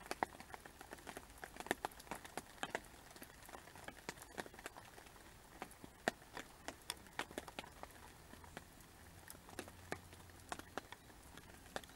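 Rain falling, with many irregular sharp ticks of drops striking close to the microphone over a steady hiss.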